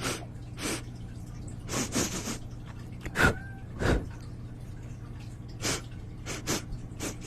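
Close-up ASMR trigger sounds: a string of about ten separate wet clicks and taps right at the microphone, loudest a little after three seconds in, over a steady low hum.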